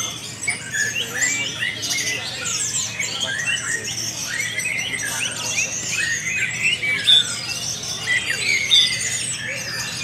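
Many caged competition songbirds singing at once: a dense chorus of overlapping chirps, trills and whistled notes, with a couple of louder sharp notes about seven and nine seconds in.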